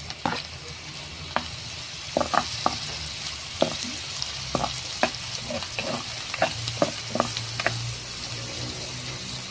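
Diced onion, garlic and potato cubes sizzling in hot oil in a frying pan. A steady hiss, with irregular clicks and knocks of the utensil against the pan as the freshly added onion is stirred in.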